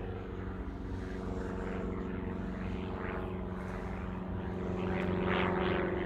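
A steady engine drone that grows louder toward the end, over a background hiss.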